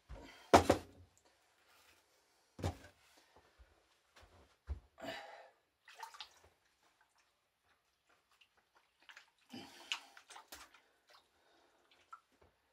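Handling in a kitchen sink: scattered knocks and bumps with wet splashy sounds, the loudest a sharp knock about half a second in. There is no steady stream of running water.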